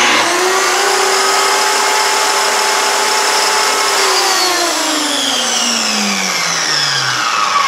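Milwaukee 15-amp corded circular saw running free with no cut, at full speed and steady pitch. About four seconds in the trigger is released and the motor winds down with a steadily falling whine.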